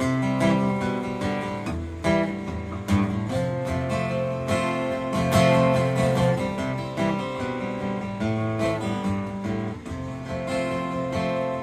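Taylor 112ce acoustic guitar playing chords on its own, with a new note or chord struck every half second or so.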